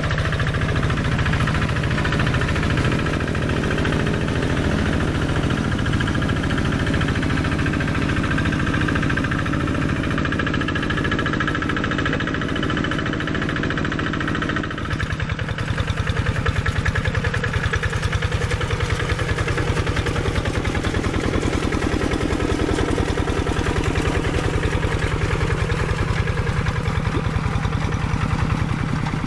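Single-cylinder Kubota diesel engine of a Quick G1000 Boxer hand tractor running steadily under load while it churns a flooded rice paddy. It has a fast, even firing beat that becomes sharper and slightly louder about halfway through.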